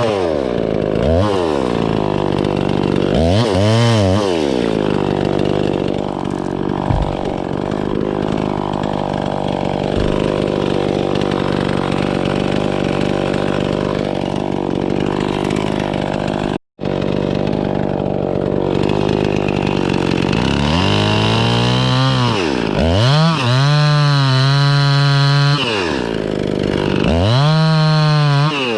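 A chainsaw revs up and runs at high speed for a long stretch, as when cutting through wood. Near the end it is revved up and down about three times, dropping back toward idle between revs.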